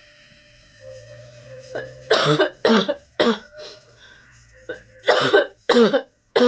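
A woman's deep smoker's cough, brought on by cigarette smoke: two fits of three short coughs each, about half a second apart, the first fit about two seconds in and the second near the end.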